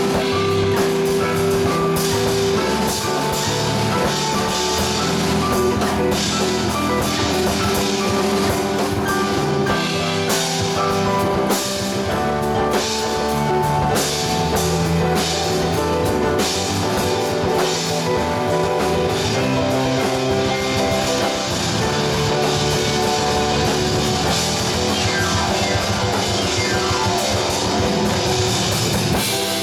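A small live band playing: electric keyboard, electric guitar, electric bass and drum kit, with the drums keeping a steady beat.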